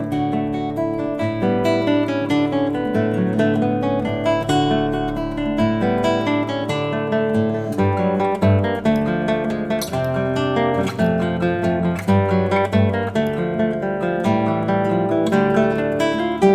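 Solo classical guitar playing a melody with bass notes underneath, plucked notes following one another in an unbroken run.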